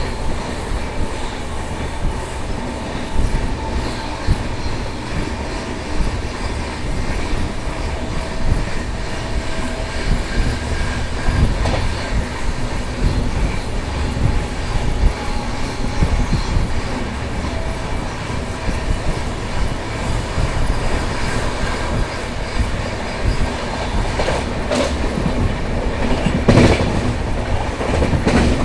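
Indian Railways passenger train running at speed, heard from an open coach window: a steady rumble with wheels clacking over the rail joints, and a louder burst of clattering a few seconds before the end.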